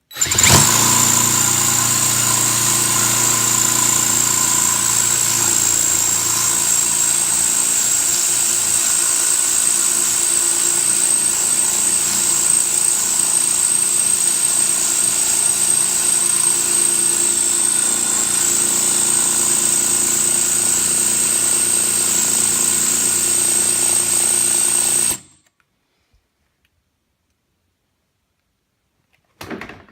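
Power drill running steadily at constant speed while drilling a hole for a seat mount, with a high, even whine. It runs without pause for about 25 seconds, then cuts off suddenly.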